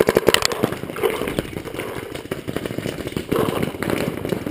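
Paintball markers firing rapid strings of shots: a fast burst of sharp pops in the first half-second, then more strings about a second in and again around three and a half seconds.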